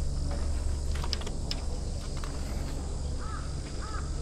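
A bird calling with short, harsh, arched calls, twice near the end, the start of a series that keeps going. Before it, a few light clicks over a steady low rumble.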